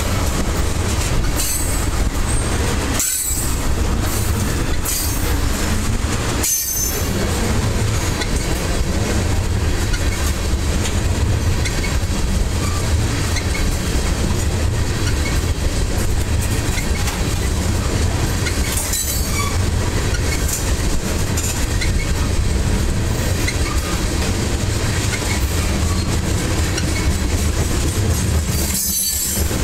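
Ethanol tank cars of a freight train rolling steadily past at close range: a continuous rumble and clatter of steel wheels on the rails.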